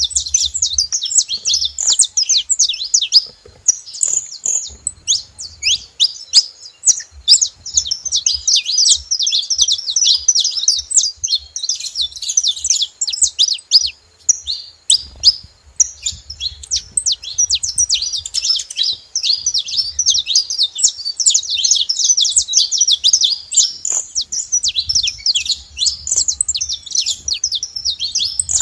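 Several saffron finches singing together: a dense, continuous run of rapid high chirps and trills. There are brief lulls about three seconds in and around the middle.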